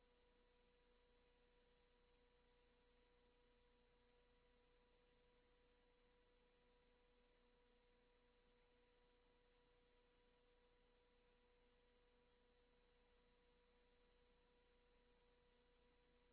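Near silence: a faint steady hiss with a few faint, unchanging electronic tones.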